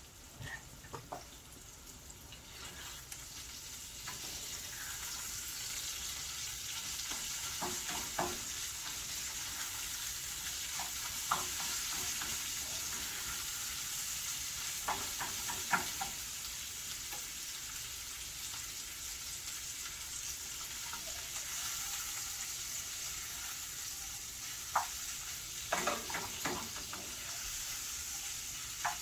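80% lean ground beef sizzling and frying in a pan, a steady hiss, with scattered clinks and scrapes of a utensil as it is stirred; the cook thinks the meat is starting to burn.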